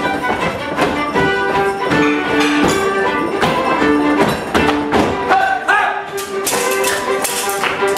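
Lively instrumental dance tune with a steady beat, played for an English longsword dance, with sharp clicks and knocks over it.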